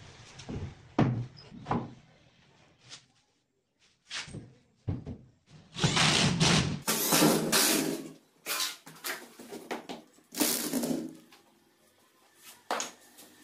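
Wooden knocks as a plywood strip is set against the panel, then a corded power drill running in several bursts of about a second each as the strips are fixed.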